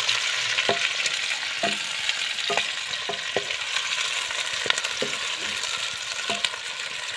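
Sliced onions sizzling as they fry in hot oil in a metal pot, stirred with a spatula that scrapes and knocks against the pot about once a second.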